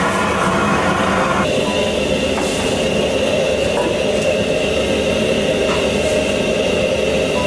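Steady roar of a restaurant gas wok burner running at full flame, with a thin steady high whine joining about a second and a half in.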